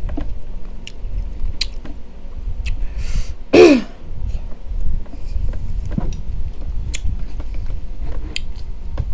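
Eating sounds: wet chewing of watermelon and clicks of a metal spoon scooping pieces from a hollowed watermelon half. About three and a half seconds in, a short hissing breath is followed by a brief vocal sound that falls in pitch, like a throat-clear or groan, the loudest moment.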